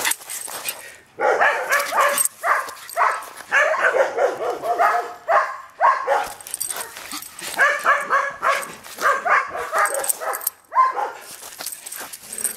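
Rat terrier barking in play, short barks coming in quick runs with brief gaps, from about a second in until near the end.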